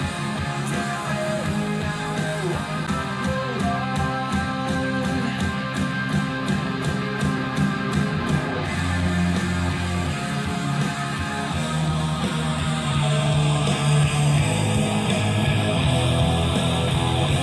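Rock music with guitar playing over a pair of Panasonic bookshelf speakers, driven through a DAC, a tube preamp and a two-channel power amp, picked up in the room. It grows a little louder in the second half.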